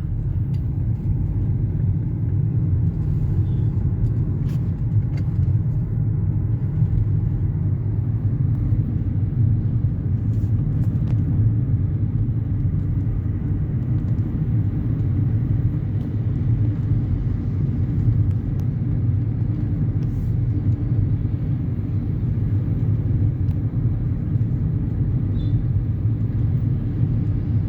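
Hyundai Creta being driven, a steady low rumble of engine and road noise with no change in pace.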